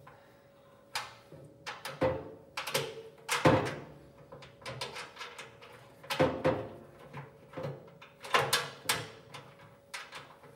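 Irregular metal clanks, taps and scrapes as a pellet grill's hopper is shifted against the steel grill body and its bolts are lined up and started by hand.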